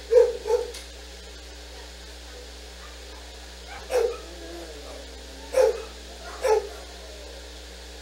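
A dog barking: two quick barks right at the start, then three single barks spaced a second or two apart.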